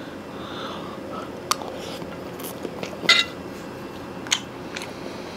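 Metal spoon and fork scraping and clinking on a ceramic plate while scooping rice, with a few sharp clinks. The one about three seconds in rings briefly.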